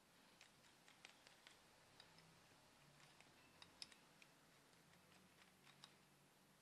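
Near silence with scattered faint, short clicks at irregular intervals.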